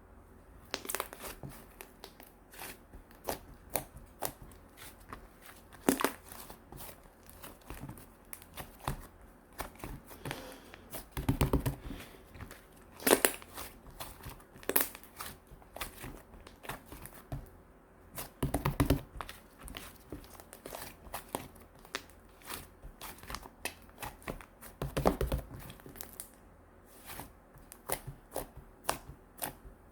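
Chocolate slime being squeezed and stretched by hand: a run of sharp crackling clicks and pops, with three heavier squelches spread through.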